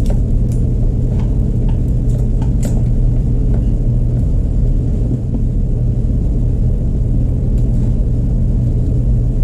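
A steady low rumble, with a few light clicks and taps scattered through it.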